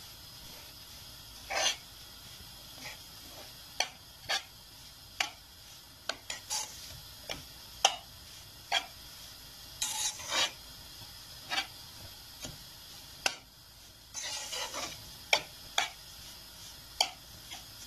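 Metal spoon scraping and clinking against the pan as it stirs and turns oily semolina, in irregular strokes and short runs of scraping.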